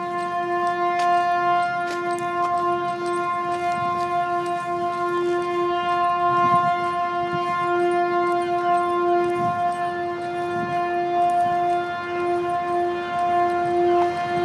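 The 'strange sounds' of the title: a steady, horn-like drone held on one pitch, its lowest note swelling and fading in strength.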